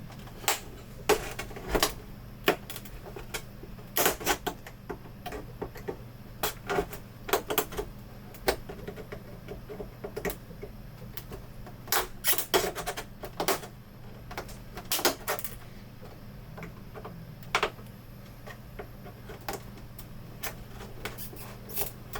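Plastic clips of an LCD monitor's casing clicking and snapping as the bezel is pried apart with a blade and plastic pry tools: a string of irregular sharp clicks, some in quick pairs, loudest near the middle.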